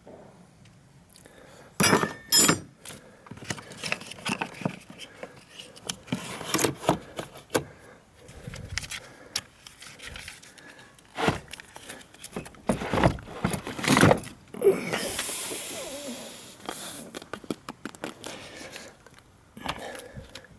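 Irregular metallic clinks, knocks and scrapes of tools and parts being handled during a car battery swap. A longer scraping hiss comes about two-thirds of the way through.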